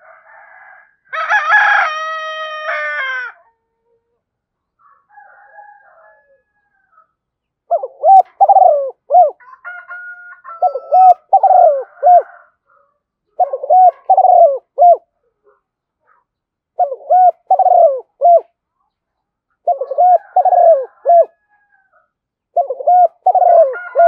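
A spotted dove repeats its cooing song: from about eight seconds in, six phrases of three or four quick coo notes, one about every three seconds. Near the start a rooster crows once for about two seconds.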